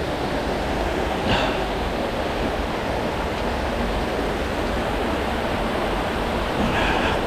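Water of an underground river rushing steadily, with two short louder sounds about a second in and near the end.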